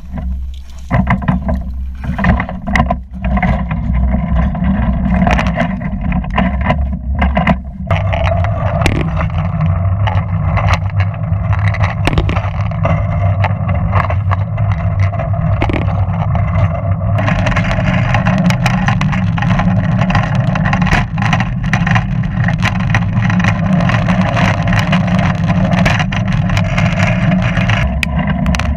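Hand-pumped railway velocipede rolling along the track: its wheels rumble steadily on the rails, with frequent sharp clicks and knocks from the wheels and pump-lever drive.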